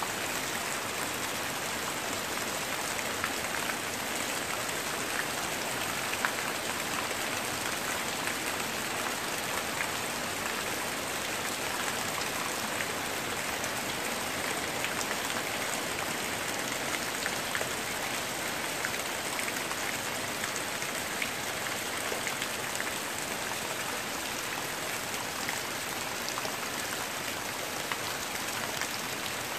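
Heavy rain falling steadily, an even hiss with scattered sharper drop hits.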